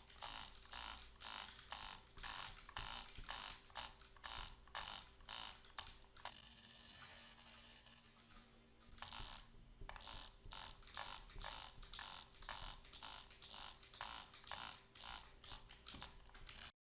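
A series of clicks, about two or three a second, stopping for about three seconds in the middle, where a steady hiss is heard, then resuming and quickening near the end.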